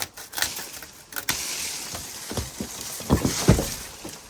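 Large cherry tree falling: a few sharp cracks, then the rushing swish of the crown's branches and leaves through the air, then several heavy thuds as the trunk and limbs hit the ground.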